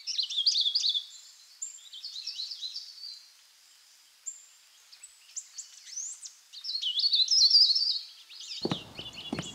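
Birdsong: several birds chirping and warbling in quick rising and falling notes, loudest about a second in and again around seven to eight seconds in. Near the end, sharp footsteps begin on concrete steps.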